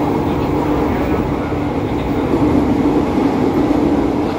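JR 205 series electric commuter train running at speed, heard from inside the carriage. Steady rolling noise of wheels on rail with a steady traction-motor hum.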